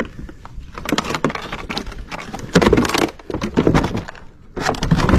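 Cardboard and a plywood panel being lifted and shifted on a pile of discarded junk: crackling, scraping and clattering handling noise with small clicks. It drops off briefly about four seconds in and picks up again.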